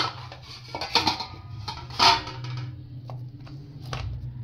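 Hands pressing and turning a ball of kneaded dough in a stainless steel bowl, with a few knocks and clinks of the metal bowl; the loudest knock comes about two seconds in. A steady low hum runs underneath.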